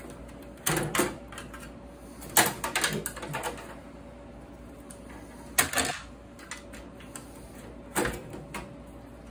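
Metal clicks and short rattles from the steel case of an old desktop computer tower as expansion cards and screws are worked loose with a screwdriver. They come in four irregular bursts, about a second in, near the middle and near the end.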